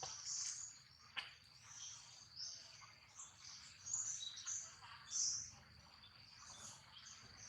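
Small birds chirping repeatedly in short high calls over a steady high-pitched insect drone, with one sharp click about a second in.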